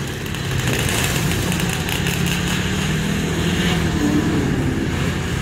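Motorcycle engines running as motorbikes ride off a ferry's bow ramp, over a steady low engine hum.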